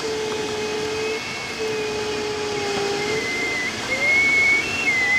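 Steady rush of air over the canopy of a Speed Astir glider in flight. Thin steady tones sit over it: a low one that stops twice, and a higher one that shifts up and down in pitch.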